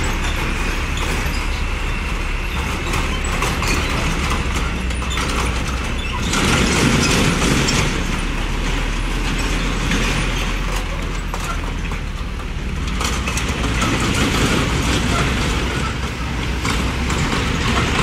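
Road traffic passing close by: heavy box trucks driving across a level crossing with engine rumble and tyre noise, swelling as a truck passes about six seconds in and again later, then motorbikes near the end.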